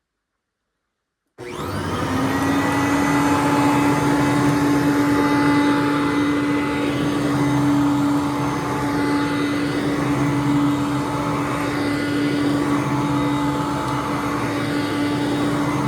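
2004 Hoover Conquest upright vacuum cleaner switched on about a second and a half in, its motor quickly coming up to speed and then running with a steady whine.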